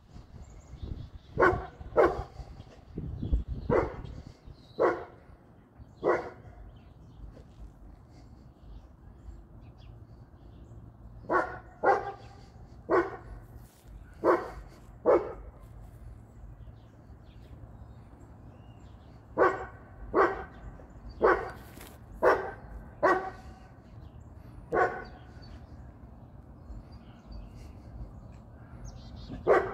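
Large mastiff-type dog barking: single barks about a second apart, in three bouts of five or six, with one last bark near the end.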